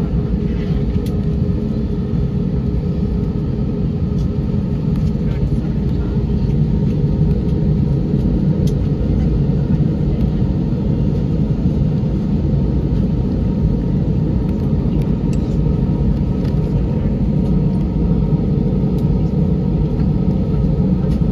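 Airliner cabin noise while taxiing: a steady rumble of the jet engines and cabin air, with a steady hum over it.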